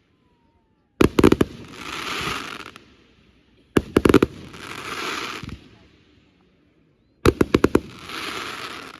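Fireworks going off in three volleys of rapid sharp bangs: about a second in, near four seconds, and just after seven seconds. Each volley trails off in a second or so of fading noise.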